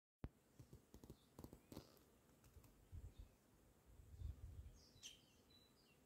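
Soft scattered clicks and low rumbles of handling noise on the microphone. About five seconds in, a nightingale starts singing a short run of high chirping notes.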